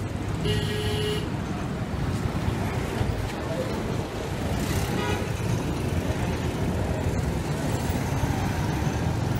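Road traffic: a steady low engine rumble, with a short vehicle horn toot about half a second in.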